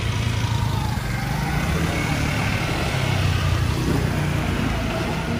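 City road traffic: the steady low rumble of passing cars and heavier vehicles on a busy avenue.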